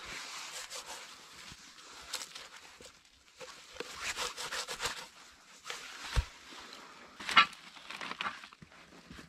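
Gloved hand scraping and sweeping dry leaf litter, pine needles and frozen soil, with crackly rustling in spells. A dull thud comes about six seconds in, then a sharp, loud clank of a metal sheet a little over a second later.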